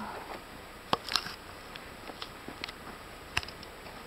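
A tired hiker's falling sigh trails off right at the start, then a few sharp, scattered clicks and taps from the hiker moving on a rocky mountain trail, over faint hiss.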